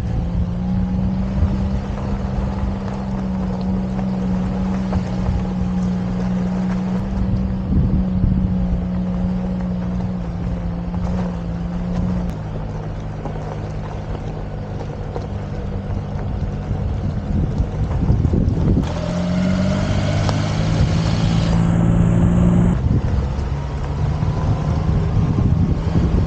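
Daihatsu Atrai kei van's turbocharged 660 cc three-cylinder engine running while the van drives, with wind on the microphone. The engine note drops about twelve seconds in and climbs again just before twenty seconds.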